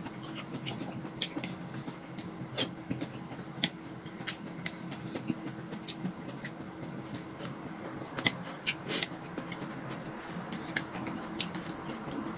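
Eating sounds: a metal spoon clinks and scrapes irregularly in a glass cup of creamy fruit salad, with mouth clicks from chewing. A faint steady hum runs underneath.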